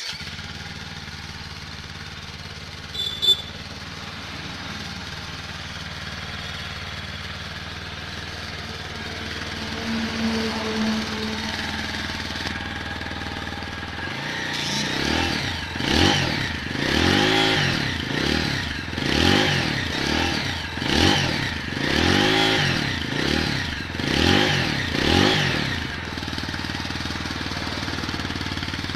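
TVS Apache RTR 160 4V BS6's single-cylinder engine idling through its stock exhaust, with a sharp click about three seconds in. About halfway through, the throttle is blipped about eight times in a row, each rev rising and falling, before the engine settles back to idle.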